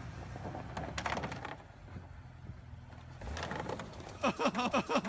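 Jeep engine running low with a scraping clatter as it climbs a concrete barrier on gravel, a dull thump a little after three seconds as it goes over onto its side, then a person laughing hard in quick bursts near the end.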